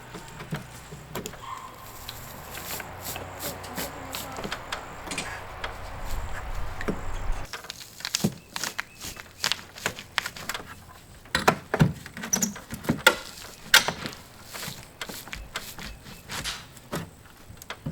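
Flat pry bar working old wooden window trim loose by hand: scattered sharp clicks, knocks and creaks. A steady hiss with a low rumble underlies the first several seconds and cuts off abruptly about seven seconds in.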